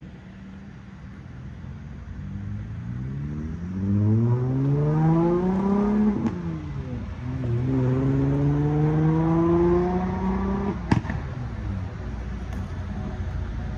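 Diesel engine of a Kenworth prime mover pulling a tipper road train, accelerating away: it revs up in one gear, dips at a gearchange about six seconds in, then climbs again in the next gear. A sharp click about eleven seconds in, after which the engine settles to a lower, steadier note.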